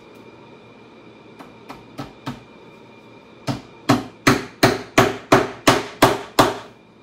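Hammer striking the leather-covered seat of a saddle being built, as the seat strainer is hammered into place: four light taps, then about a second later nine much harder blows at roughly three a second.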